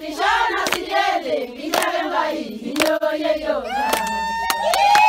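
A group of women singing together with hand claps about once a second. Near the end a steady high held tone comes in and carries on.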